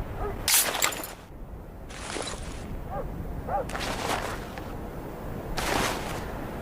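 Sword slash sound effects: four sharp, hissing swishes, each about half a second long, spaced a second and a half to two seconds apart.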